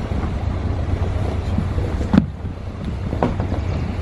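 Honda four-stroke outboard idling with a steady low hum while wind buffets the microphone. Two brief knocks come about two and three seconds in.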